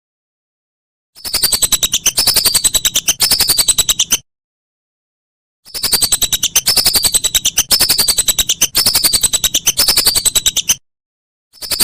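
Whistling duck (belibis) calling: rapid runs of high, falling whistled notes in bouts of a few seconds, broken by short silences.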